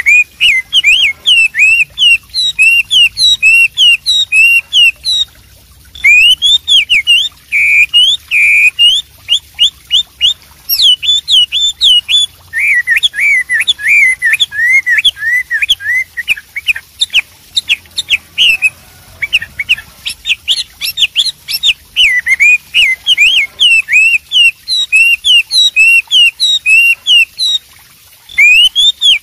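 Chinese hwamei (wambi) singing a loud, continuous song of rapid whistled phrases. It pauses briefly about six seconds in, and a run of quick repeated notes comes in the middle.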